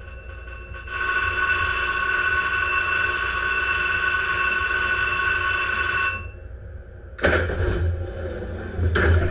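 Shipboard torpedo tube firing: a steady high machine whine with several tones runs for about five seconds and then stops, and about seven seconds in a sudden loud rush of compressed air blasts the torpedo out of the tube, with a second loud burst near the end.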